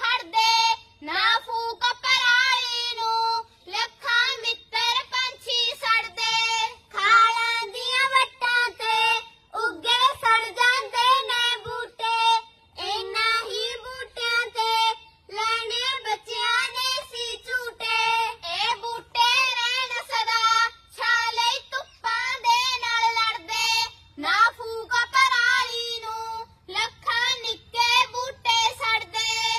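Young girls singing together in Punjabi into a microphone, with no instruments, in phrases broken by short pauses for breath and a wavering pitch on held notes.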